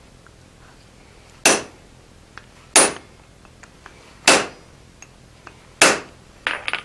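Hammer driving a center punch into a glowing-hot bar of 4140 steel on an anvil, deepening the center-punch mark: four hard blows about a second and a half apart, then a few lighter taps near the end.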